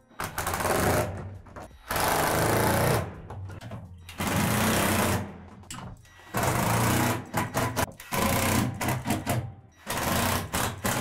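Cordless drill driving screws up into a plastic shed roof, in about six short runs of a second or so each with brief pauses between.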